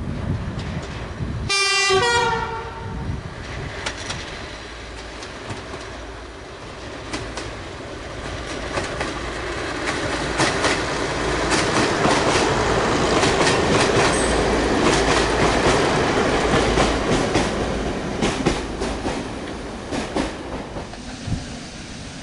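A first-generation diesel multiple unit sounds its two-tone horn briefly about two seconds in, then runs past with its wheels clicking over the rail joints, building to a peak in the middle and fading near the end.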